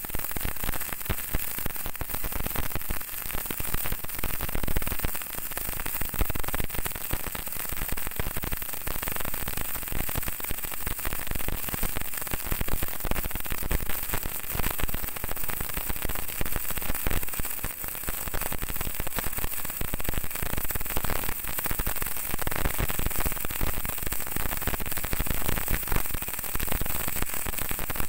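MIG welding arc crackling steadily and without a break as a bead is run on 2 cm thick steel plate.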